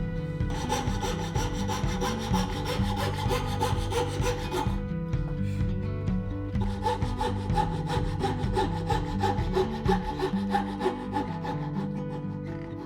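Wood being sawn by hand in quick, rapid strokes, in two bouts with a short pause about five seconds in. Background music plays underneath.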